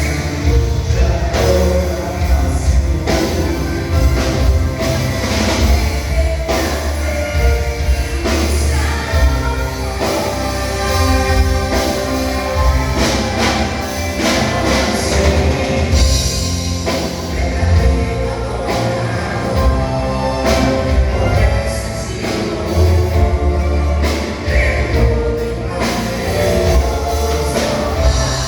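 Church vocal group singing a gospel worship song in several voices, backed by a live band with drums and a heavy bass.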